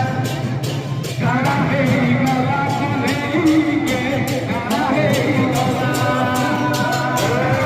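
A song with a singing voice over instrumental backing and a steady beat.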